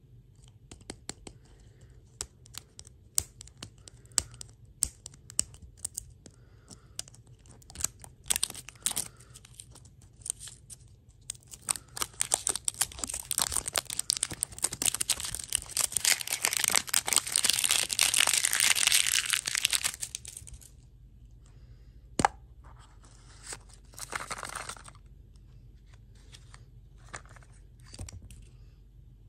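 Printed plastic wrapper crackling and tearing as it is peeled off a toy-and-lollipop plastic ball. Scattered crackles at first give way to a long, continuous stretch of crinkling and tearing in the middle, the loudest part. Near the end come a single sharp click, a short crinkle and a few light crackles.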